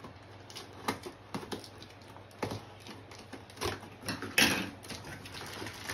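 Hands working at a cardboard box and its packing tape: scattered small taps and rustles, with a short louder rasp a little past four seconds in.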